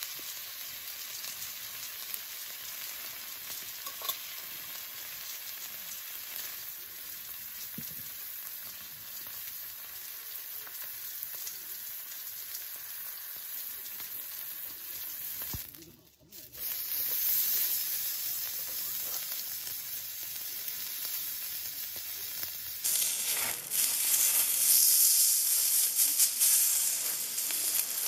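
Thick-sliced beef tongue sizzling steadily on a small iron griddle plate. About halfway through the sizzle briefly drops away, then comes back louder, and louder again in the last few seconds as meat sears on the hot griddle.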